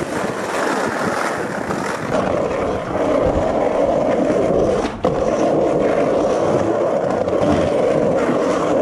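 Skateboard wheels rolling over rough street pavement: a steady, grinding rumble with a short break about five seconds in.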